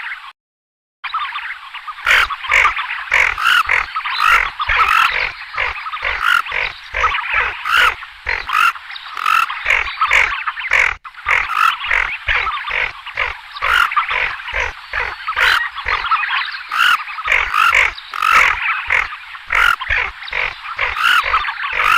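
Tufted ducks calling in a flock: a dense, continuous chatter of short, harsh croaking calls, after a brief break just under a second in, with low thumps underneath from about two seconds on.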